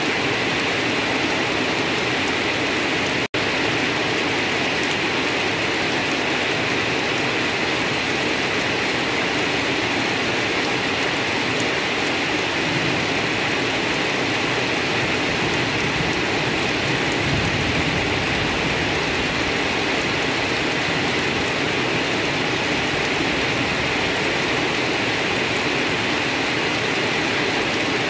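Steady rain falling on leafy undergrowth, an even hiss of drops. The sound drops out for an instant about three seconds in.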